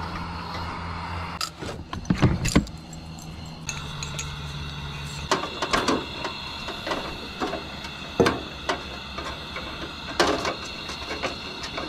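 Clicks and knocks of hands handling a portable propane camp stove as a propane cylinder's regulator is fitted and the stove is readied for lighting. A steady high-pitched whine runs underneath from a few seconds in.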